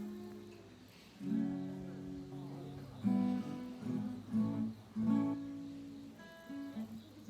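Acoustic guitar strummed in chords, each chord ringing out before the next; no singing.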